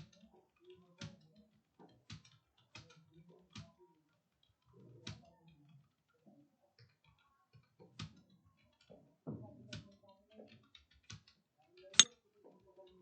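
Computer keyboard keys clicking in uneven, scattered keystrokes, roughly one every second. One much sharper, louder click comes about twelve seconds in.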